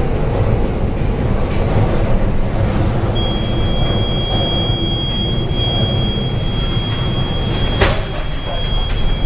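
Heavy, steady rumbling and rattling aboard a cargo ship in a storm at sea, with wind and waves against the vessel. A thin, steady high tone comes in about three seconds in, and two sharp knocks sound near the end.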